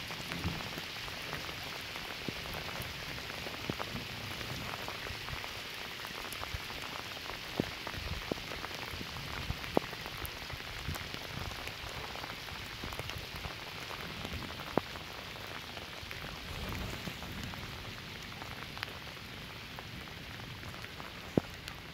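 Steady rain falling, with scattered sharp taps of individual drops striking close by.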